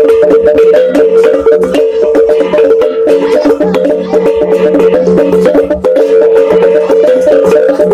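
Fast percussion music: ringing pitched tones, one held steady, over a dense, quick knocking beat.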